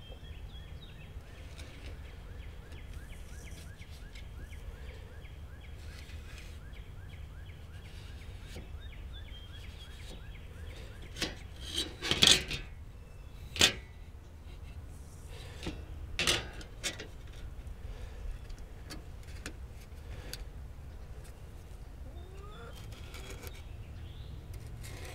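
A handful of sharp knocks and taps near the middle, from aluminum angle trim being handled and set against an OSB work table while it is marked out. Under them, a steady low background hum with faint bird calls.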